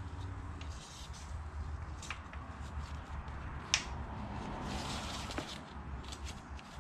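Tusk Traverse pannier straps being handled and pulled through the motorcycle frame: rustling and sliding of the webbing with scattered small clicks, and one sharp click a little under four seconds in. A steady low hum runs underneath.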